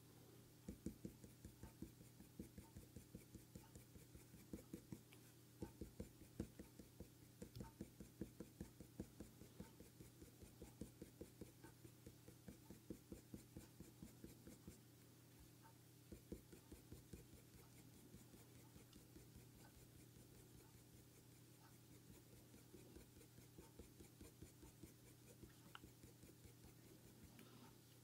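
Faint scratching of a coloured pencil on hot-press paper in quick, short shading strokes, several a second. The strokes grow fainter after about seventeen seconds.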